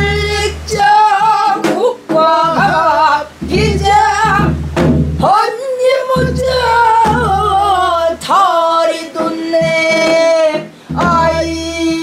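A woman singing a Korean folk song in the Namdo minyo style, with a strained, throaty voice, long held notes with wide vibrato, and slides between pitches, broken by short breaths.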